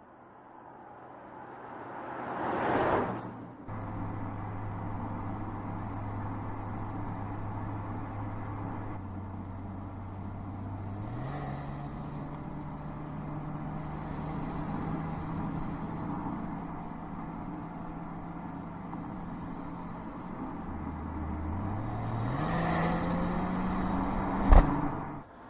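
Mercedes-Benz GLE SUV engine and exhaust while driving. The engine pitch holds steady, then steps up once about a third of the way in and again near the end as it accelerates. The car whooshes past three times, and there is a single sharp crack near the end.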